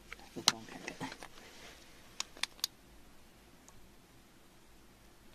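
Fingers handling a wet pebble in gritty soil: soft scrapes and small taps, then three sharp clicks in quick succession about two seconds in.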